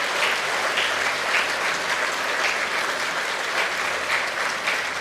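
Audience applauding, many people clapping at once in a steady, dense patter.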